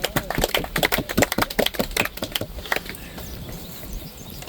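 A small group of people clapping in scattered applause, which fades out after about three seconds.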